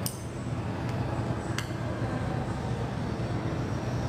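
A steady low hum with two small, sharp clicks, the second about a second and a half after the first: small tools ticking against phone parts while the SIM tray is being removed.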